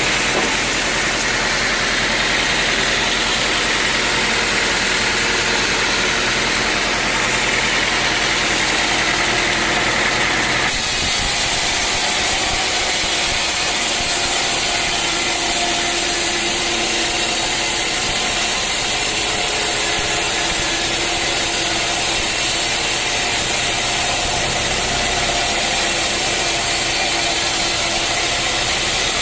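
Sawmill machinery running steadily while teak logs are sawn, an engine-driven saw with a constant drone. About ten seconds in the sound switches abruptly to a different, noisier running sound.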